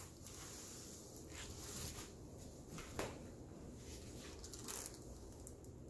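Faint rustling and brushing of a diamond painting canvas and its plastic cover film being handled, with a light tap about three seconds in.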